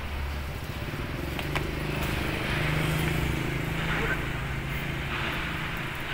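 Steady low engine hum of street traffic, with vehicles swelling past. A couple of brief clicks come about a second and a half in.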